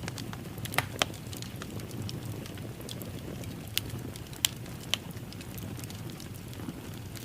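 Wood fire crackling in a fireplace: a steady low rumble of burning with scattered sharp pops, a few close together about a second in and more near the middle.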